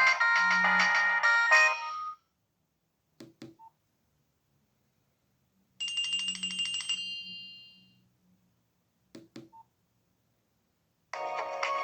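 Nokia 1680 classic's loudspeaker playing polyphonic ringtones. One melody ends about two seconds in, a short pulsed alert tone rings out midway, and a new ringtone starts near the end. A few short clicks come twice in the gaps between them.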